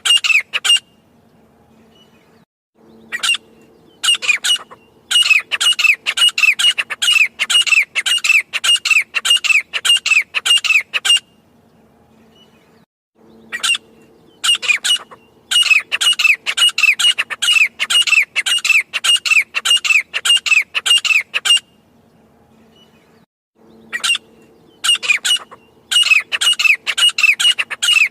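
Grey francolin calling: loud, high, downward-curving notes repeated about two to three times a second in long bouts, with pauses of about two seconds between bouts. A faint low hum sits underneath.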